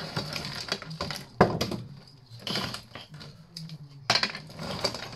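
A tangle of electrical cables being pulled about and sorted by hand: plastic-sheathed wire rustling, with plugs and wire clattering and clicking. The sharpest click comes about a second and a half in.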